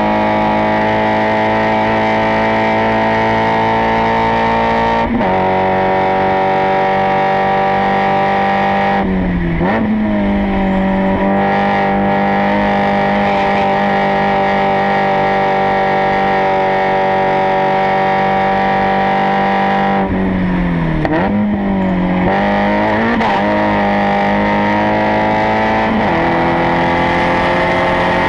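Spec Miata race car's four-cylinder engine running hard at high revs, heard close to the exhaust from the rear bumper. The engine note holds high and steady, dips sharply and picks back up about nine seconds in and again around twenty to twenty-three seconds in, then climbs slowly near the end.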